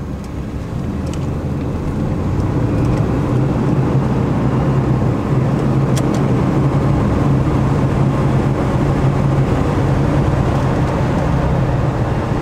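Dodge Ram camper van driving on a highway, heard from inside the cab: a steady engine hum and road noise, growing louder over the first few seconds and then holding.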